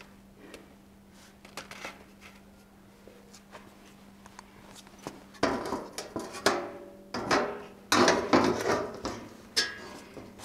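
A sheet-metal patch panel clanks and scrapes against a rusty steel inner fender as it is laid on it and shifted around to check the fit. The first half is quiet apart from a few light taps, then there are several sharp metal-on-metal clatters from about halfway in.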